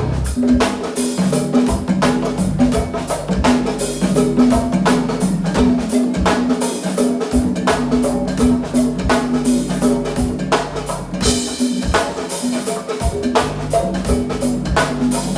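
Live music driven by a drum kit and percussion, with regular drum hits over a repeating low bass note.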